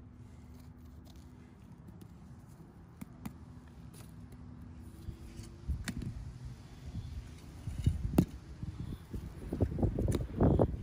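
Wind rumbling on an iPhone microphone, then a rake scraping and knocking on dry, rocky dirt along with footsteps, the stones shifting. There is a sharp knock about eight seconds in and a dense burst of scraping near the end.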